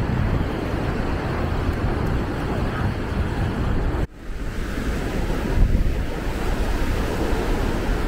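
Surf washing on the shore under steady wind buffeting the microphone. The sound cuts out for an instant about halfway through, then resumes.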